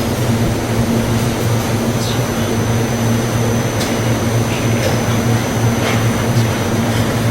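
Machinery of a mandarin sorting and grading line running steadily, a constant low hum with motor and conveyor noise, with a few faint clicks scattered through.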